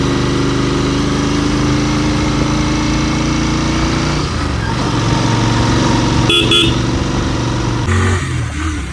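Royal Enfield Continental GT 650's parallel-twin engine running steadily under way, with two short horn beeps a little past the middle.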